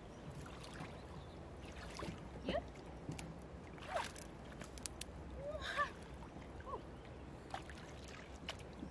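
Light splashing and sloshing of shallow river water as hands work in it, with scattered small clicks and a few short bird chirps.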